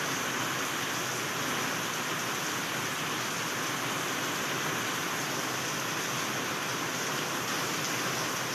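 Heavy rain pouring steadily, a dense even hiss with no thunder or other events.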